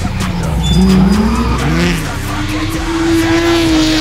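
Drift car engine revving up and down, then held at high revs, with tyres squealing as the car slides.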